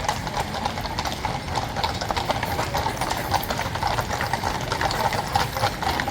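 Hooves of a column of horses clip-clopping as the mounted troop walks past, many overlapping irregular strikes.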